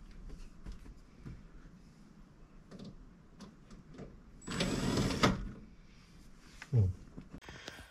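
Handling noises from work under a car's dashboard: faint scattered knocks and clicks, with one louder burst of noise lasting just under a second about halfway through and a short thump near the end.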